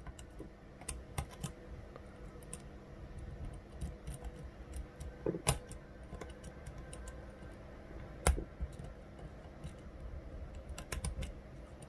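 Small metal clicks and ticks from a lock pick working the pin stack of an Assa 600 euro cylinder under tension, at an irregular pace, with two louder clicks about five and a half and eight seconds in. The pick is being twisted into the lowest pin to work it out of the countermilling.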